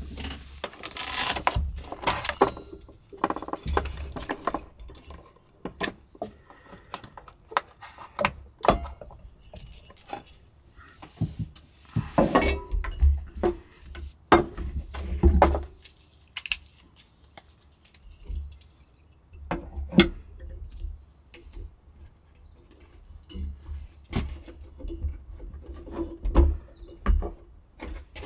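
Small metal camping cookware and a gas-canister stove being handled and set out on a wooden table: an irregular series of clinks, knocks and light rattles.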